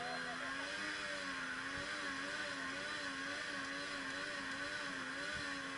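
Small off-road 4x4, a Suzuki Jimny, its engine held at high revs, the pitch wavering up and down about twice a second as it works at the foot of a steep dirt bank.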